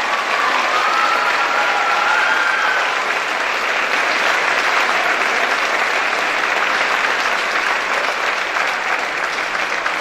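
Audience applauding, with a voice calling out over the clapping in the first few seconds. The applause thins to scattered claps near the end.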